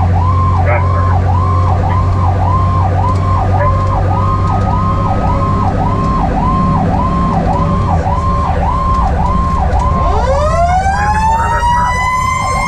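Fire engine's electronic siren wailing in quick up-and-down cycles, about two a second, over a diesel engine drone. About ten seconds in, a Federal Q mechanical siren starts winding up, its rising howl climbing steadily toward its peak.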